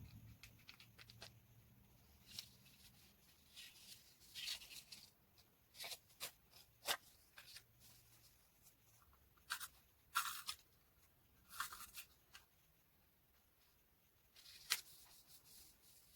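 Paper and craft materials being handled while making a journal spread: short, scattered rustles, crinkles and scrapes of paper, with small clicks and taps. A single sharp click near the end is the loudest sound.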